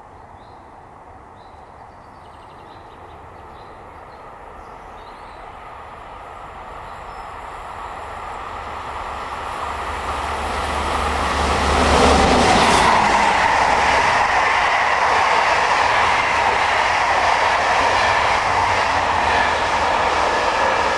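Electric passenger trains passing on adjacent tracks. A locomotive-hauled train grows steadily louder as it approaches, reaches the microphone about twelve seconds in, and keeps up a loud, even rolling noise of wheels on rail while a double-deck suburban electric train passes alongside it.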